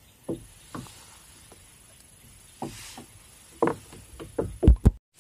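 Handling noise: a string of short knocks and thumps, a few spaced out at first, then a quick, louder cluster of low thumps near the end, cut off abruptly.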